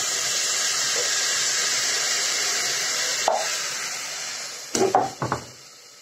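Rice sizzling in hot oil and fried vegetables in an aluminium pressure cooker as it is tipped in. The sizzling fades from about three seconds in, and near the end a knock and a few metal clatters come as the emptied pan is set down.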